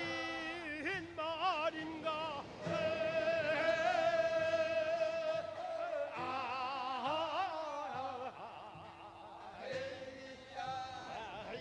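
Korean folk singing from the Jindo region: voices with strong vibrato hold long, wavering notes, one phrase after another, with several voices overlapping about six seconds in.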